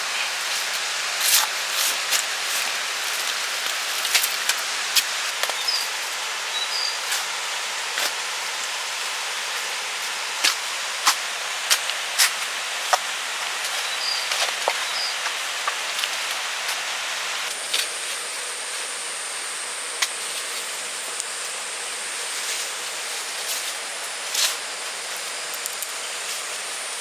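Steady outdoor hiss with many irregular sharp clicks and knocks through it, a few faint short chirps, and a thin high steady tone that comes in about two-thirds of the way through.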